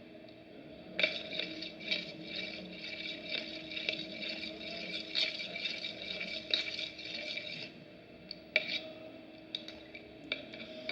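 A spoon scraping and clicking in a container while body wash is spooned into clear slime glue: a quick run of small scrapes for about six seconds, then a few separate taps near the end.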